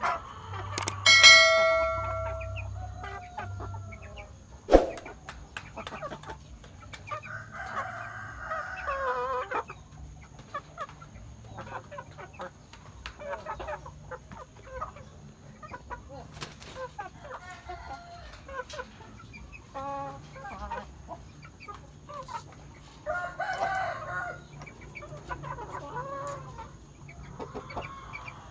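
Roosters crowing and chickens clucking, with two longer falling crows and shorter calls between. A ringing bell-like chime sounds about a second in, and a sharp knock a few seconds later.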